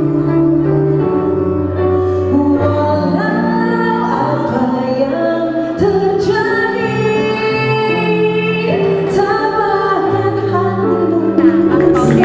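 Music with a woman singing over steady held accompaniment chords.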